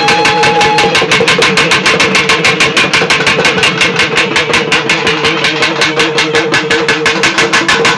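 Loud, rapid, even drumbeat over a steady droning tone, with a higher held note that ends about a second in: traditional Tamil temple drum music.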